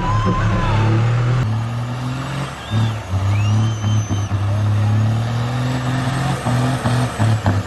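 Engine held at full throttle with its throttle zip-tied wide open, running hard at a steady high pitch with short dips. The engine is being run to destruction.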